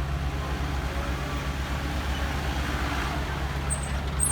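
A heavy diesel engine of a truck or earthmoving machine running steadily with a low drone. A couple of short, high squeaks come near the end.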